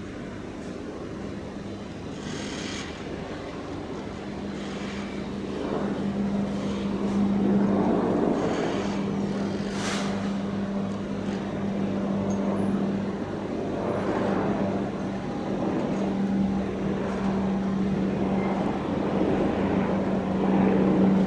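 Mobile crane's diesel engine running under load while hoisting a Shinkansen car, a steady hum with noise that swells louder from about a quarter of the way in.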